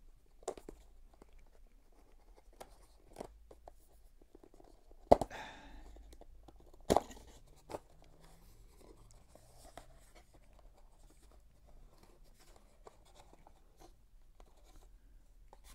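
Thin white cardboard packaging being handled and unfolded, with light rustling of card and a few sharp taps and clicks. The loudest tap is about five seconds in, and another comes about two seconds later.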